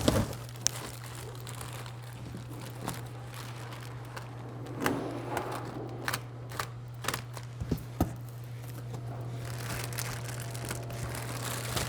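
Packaging being handled: plastic wrap crinkling, with scattered light clicks and knocks as the headlight units are moved about, over a steady low hum.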